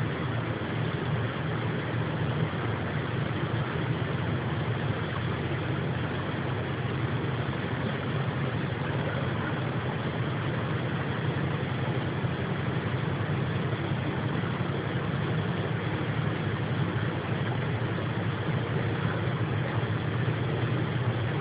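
Steady, unbroken low rumbling drone of unidentified origin, like a distant machine, somewhere between an airplane and a helicopter, picked up by a phone's microphone.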